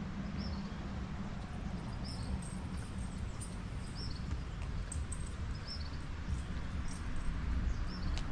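A small animal giving a short, high chirp about every one and a half to two seconds, over a low steady rumble.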